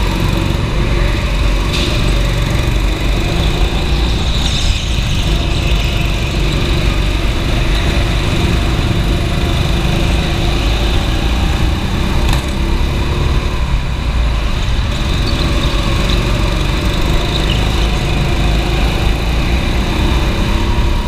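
Go-kart engine running hard, heard close up from the kart itself, a steady loud drone.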